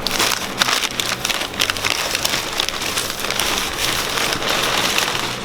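Plastic packaging crinkling and rustling as it is handled, a dense run of quick crackles that stops suddenly at the end.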